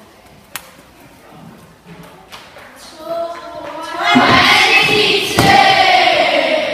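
Children shouting and cheering that build up about three seconds in, with two thuds as a boy vaults a vaulting box and lands on a crash mat, the second about five seconds in.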